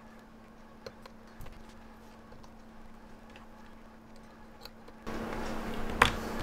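Faint, irregular small clicks of metal tweezers and a wooden stick against a quartz watch movement as a button-cell battery is pressed into place, over a low steady hum. About five seconds in, the background hiss suddenly gets louder and a sharper click follows.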